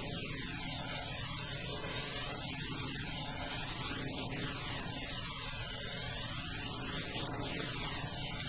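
Steady hiss with a low hum, its tone slowly shifting and swirling; no sound from the cat.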